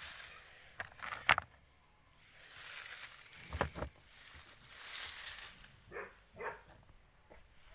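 River stones being handled among dry grass: rustling with a few sharp knocks of stone on stone, one of them heavier about three and a half seconds in.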